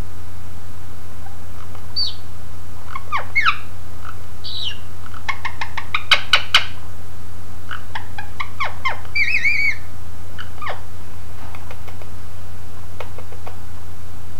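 Indian ringneck parakeet making scattered soft chirps and squeaky pitch glides, with a quick run of sharp clicks about six seconds in and a short wavering call a few seconds later.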